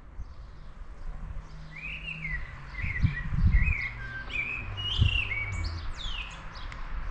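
A songbird singing a run of short, clear, repeated phrases, over a low rumble with a few thumps about three and five seconds in.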